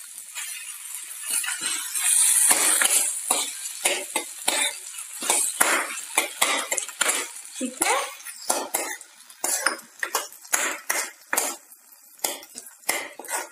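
Steel ladle scraping and clinking against a metal kadhai as boiled macaroni is stirred into cooked vegetables, about two strokes a second, over a faint sizzle of the food in the pan.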